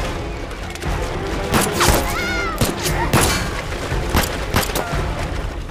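A string of sharp pistol shots, about eight cracks fired irregularly over a few seconds, over a dramatic film score. A short wavering cry rises between the shots about two seconds in.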